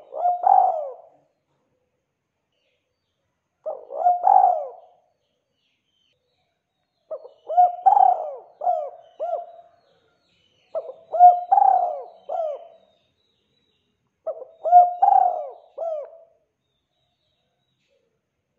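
Spotted dove cooing: five coo phrases about every three and a half seconds, the first two short and the last three longer, of several notes each.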